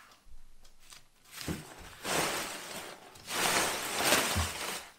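Bubble wrap and plastic packing rustling and crinkling as it is pulled off and pushed aside, starting about a second and a half in and loudest in two long stretches, with a couple of dull knocks.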